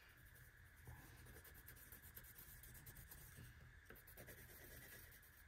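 Faint scratching of a felt-tip marker drawing and colouring on paper, over quiet room tone.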